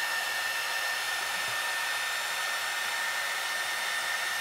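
Small 300-watt heat gun blowing steadily, a rush of air with a steady high whine, as it shrinks heat-shrink tubing over the soldered wire joint on an LED strip.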